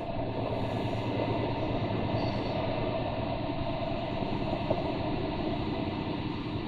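Lorry's diesel engine running steadily under load, heard from inside the cab.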